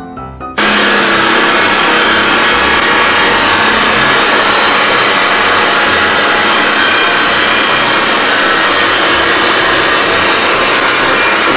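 Abrasive cut-off saw (chop saw) cutting through metal, a loud, steady grinding noise that starts suddenly about half a second in.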